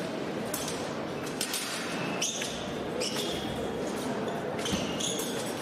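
Fencers' shoes squeaking and tapping on the piste during footwork, a short sharp squeak roughly every second, over the steady murmur of a large hall.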